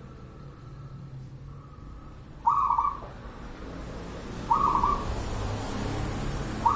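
Zebra dove (perkutut) cooing, a short phrase about every two seconds, each one alike.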